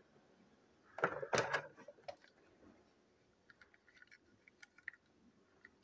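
Light plastic clicks and taps from a toy train engine being handled and turned over in the hand: a small cluster about a second in, then scattered faint ticks.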